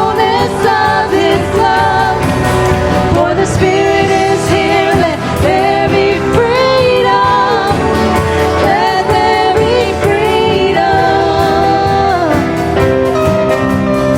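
Contemporary worship song: voices singing over a full band, with held, wavering sung notes.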